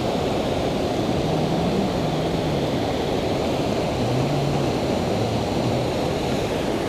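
Steady rushing noise of wind on the microphone mixed with the creek's flowing water, even in level throughout.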